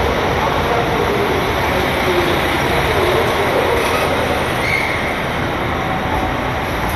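KiHa 261 series diesel express train rolling slowly into the platform as it brakes to a stop, the running noise steady with a faint, wavering squeal from the wheels and brakes in the first half.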